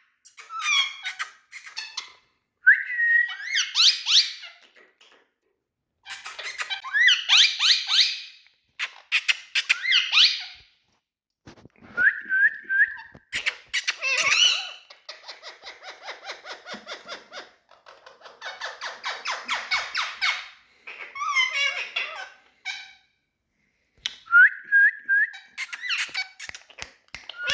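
Indian green parrot calling in bursts: short rising whistled notes alternating with rapid, rough chattering, with brief pauses between bursts.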